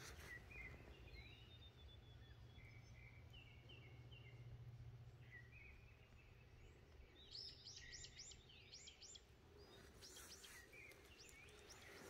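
Faint birdsong: scattered short chirps, with a quick run of higher, sweeping notes about seven seconds in.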